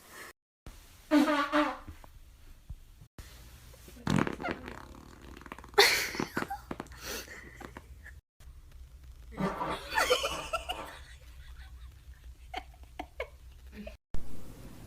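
Several loud farts in short clips cut one after another, with brief dead-silent gaps at the cuts. The first, about a second in, is pitched; later ones near four, six and ten seconds in are longer and rougher.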